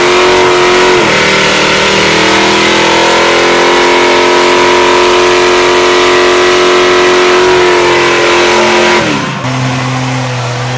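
A car engine revved up and held at a steady high rpm for about eight seconds, with a loud hiss over it. The revs drop away about nine seconds in.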